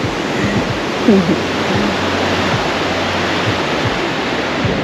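Ocean surf washing onto the beach: a loud, steady rush of breaking waves, with faint voices under it.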